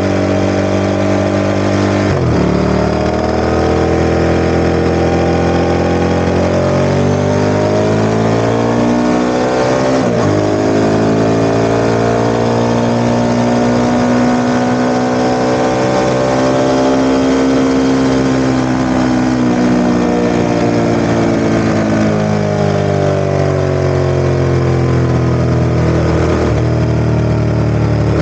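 Ducati ST4S 996 cc L-twin engine revved up from idle about two seconds in and held at raised revs. Its pitch climbs slowly to a peak past the middle, then eases down and drops back to idle near the end.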